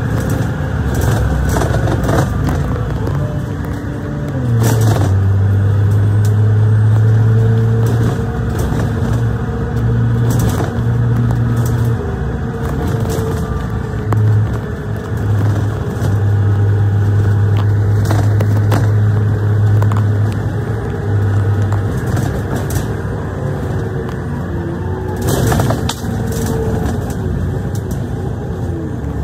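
Double-decker bus heard from inside: the engine and road noise of the bus running at speed, with a steady low drone that fades about three-quarters of the way through as it slows, a faint whine drifting in pitch, and sharp clicks and creaks from the body rattling.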